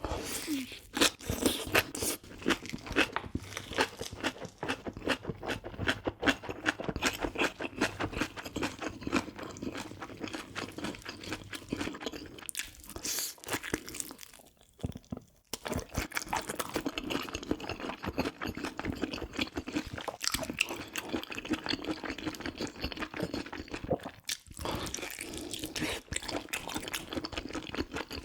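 Close-miked chewing and crunching of braised pig's trotters (jokbal) and kimchi: a steady run of wet, crackly bites and chews, with a few short pauses.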